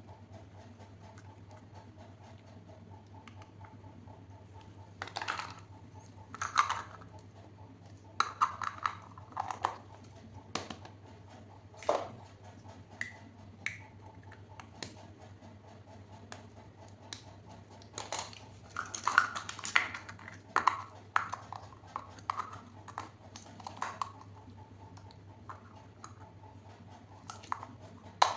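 Small plastic toy kitchen pieces and their packaging being handled: irregular light clicks, taps and rustles, busiest in two stretches, over a faint steady low hum.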